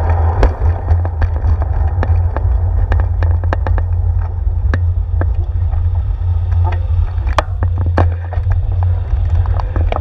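Steady low rumble of wind and road vibration on a handlebar-mounted GoPro Hero 4 on a moving bicycle, with frequent sharp clicks and rattles from the bike and mount over bumps. A pickup truck's engine is heard alongside, fading within the first second.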